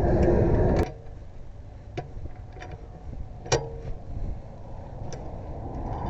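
A steady low rumble of vehicle noise cuts off abruptly about a second in. It is followed by a few scattered sharp clicks and clinks; the loudest, about three and a half seconds in, has a brief metallic ring.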